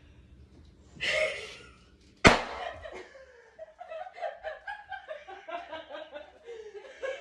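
A sharp smack a little over two seconds in, then a person laughing in quick, broken bursts for the rest of the time.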